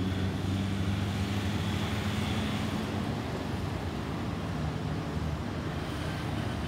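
Distant rumble of an Airbus A320-216's CFM56 jet engines as the airliner climbs away, slowly fading.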